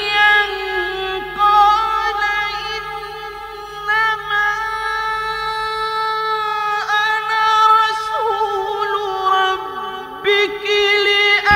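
A man's voice in melodic Quran recitation, drawing out long ornamented notes. One note is held steadily for several seconds before the pitch drops about eight seconds in.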